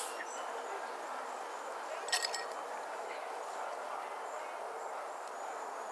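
Park ambience: a steady murmur of many distant voices, with a brief cluster of sharp metallic clinks about two seconds in.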